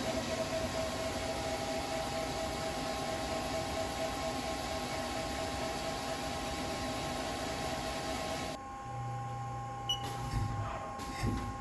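A 2003 Haas SL-30T CNC lathe running with a steady mechanical whir and a few steady tones. About eight and a half seconds in, the whir cuts off abruptly, leaving a low hum and a few short clunks from the machine's moving parts.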